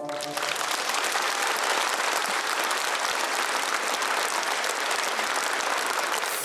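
Concert hall audience applauding steadily after a song ends.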